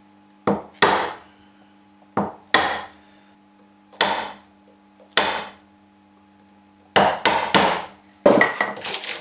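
A mallet striking a wood chisel, chopping out a half mortise in a timber bench part: about ten sharp knocks at uneven intervals, with closely spaced knocks and scraping in the last second.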